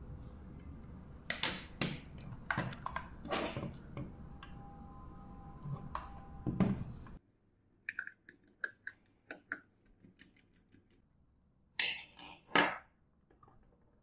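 Clicks and knocks of a mini PC and a 2.5-inch SSD being handled on a tabletop, over a steady low hum that cuts off abruptly about halfway. A run of light ticks follows as a screw is undone with a screwdriver, then two louder knocks near the end.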